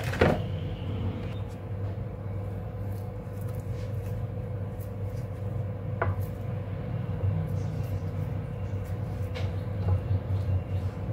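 A metal spoon spreading thick semolina batter around a frying pan, with a few light clicks of spoon and bowl against the pan near the start, about six seconds in and about nine seconds in. A steady low hum runs underneath.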